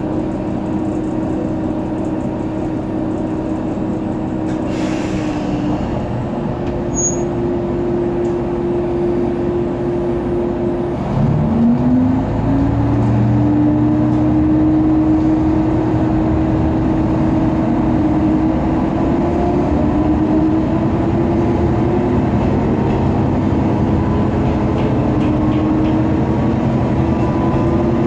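Sanriku Railway diesel railcar's engine idling, then revving up about eleven seconds in as the railcar pulls away, its pitch climbing and stepping up several times as it gathers speed. A short hiss about five seconds in.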